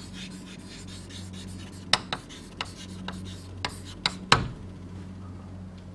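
Writing strokes: light scratching with several sharp taps spread over a couple of seconds in the middle, over a steady low electrical mains hum.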